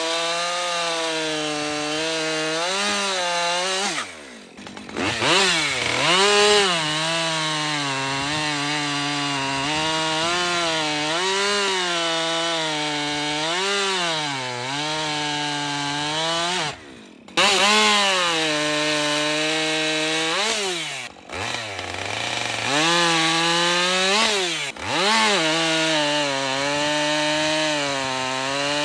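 Husqvarna 545, a 50cc two-stroke chainsaw, running at high revs and cutting through wood. Its pitch sags and climbs back again and again as the chain bites. It drops away briefly four times and revs back up each time.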